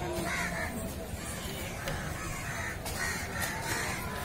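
Crows cawing, a run of short harsh calls roughly every half second.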